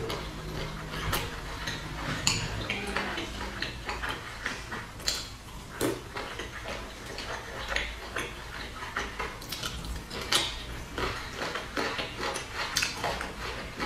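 Close-miked eating sounds: chopsticks clicking irregularly against a glass dipping bowl, and wet chewing of boiled dumplings.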